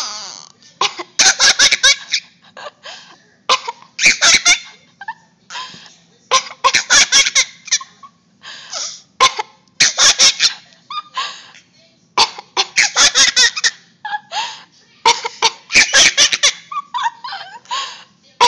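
A toddler laughing in fits about every three seconds, with short coughs among them; the child is laughing at an adult's coughing.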